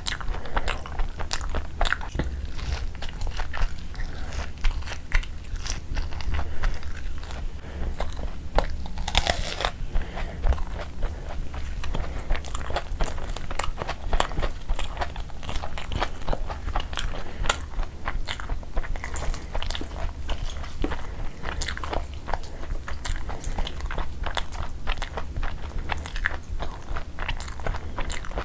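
Close-miked eating: chewing and biting saucy chicken, flatbread and egg, with frequent sharp wet clicks and crunches at an uneven pace, over a steady low hum.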